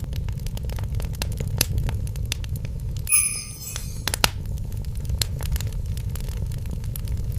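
Fireplace fire crackling: a steady low rumble with frequent sharp pops and crackles, and a short bright chime-like ringing about three seconds in.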